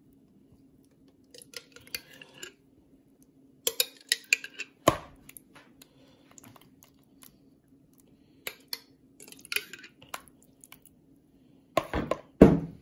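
A spoon scraping and knocking against a bowl as mayonnaise is scooped in: scattered scrapes and clicks in short clusters, with one sharp knock about five seconds in and a louder clatter near the end.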